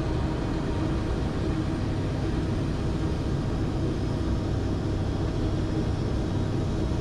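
Steady engine and airflow noise inside a turboprop airliner's cockpit on final approach, a constant low drone with a faint steady hum.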